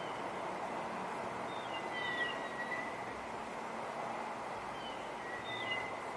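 Steady wind noise with birds singing: short high chirps scattered throughout, and a longer whistled note about two seconds in and again near the end.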